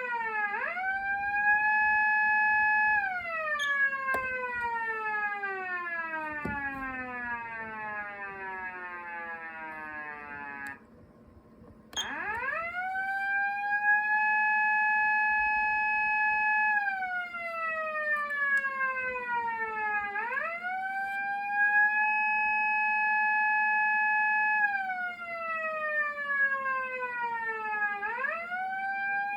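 Patlite SAP-500BK-PV electronic police siren amplifier. One wail rises and holds, then slides slowly down for about eight seconds as the siren winds down, and a second of quiet follows. It then restarts in its 8-second cycle: a rise, a steady high tone held about four seconds, a slow fall, repeating.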